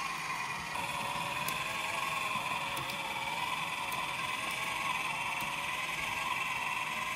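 Motor-driven 3D-printed filament respooler running steadily at full speed, its printed plastic gear train giving a constant whine while it winds filament onto a new spool. A few faint ticks come through the whine.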